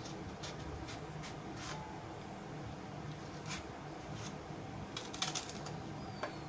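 Small kitchen knife scraping and cutting the peel of a raw green banana: a few short, scratchy strokes spread apart, with a quick cluster about five seconds in, over a faint steady hum.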